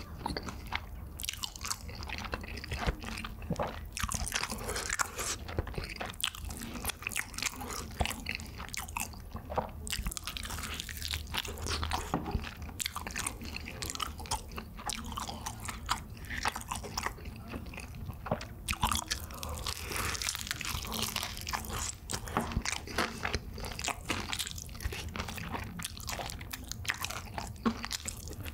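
Close-up crunching and chewing of BHC Bburinkle seasoned fried chicken: crisp coated skin is bitten off the drumstick and chewed with the mouth, a steady stream of irregular crunches.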